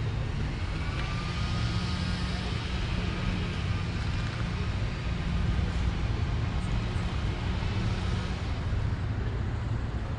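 Street traffic ambience: a steady low rumble of vehicles, with a faint whine that drifts in pitch during the first couple of seconds.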